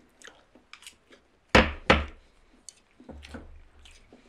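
Wooden chopsticks and tableware knocking on a wooden table and serving board: scattered light clicks, with two sharp knocks in quick succession about a second and a half in.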